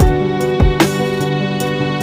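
Background music: sustained melodic tones over a steady kick-drum beat.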